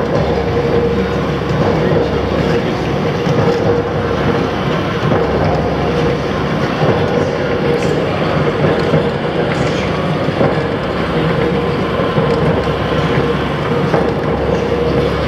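KB8340 crank press running, its big flywheel turning and the drive making a loud, steady mechanical noise with a steady whine.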